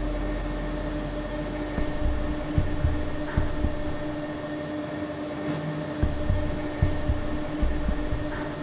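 Steady mechanical hum of boiler-room plant, with a thin high whine above it and soft low thumps now and then.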